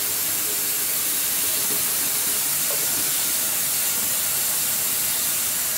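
Bathroom faucet running a steady stream of water into a sink basin filling with sudsy cleaning solution, a constant even hiss.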